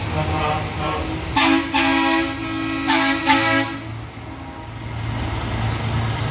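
Race-car transporter trucks sounding their air horns: several loud blasts over about two seconds starting about a second and a half in, over a low two-note chord. After that comes the low, steady running of a diesel prime mover as it approaches.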